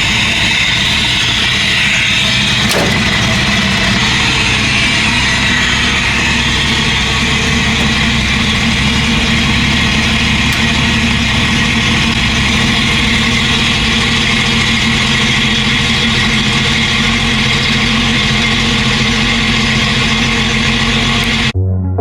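Jeep engine running steadily. It cuts off abruptly near the end as music begins.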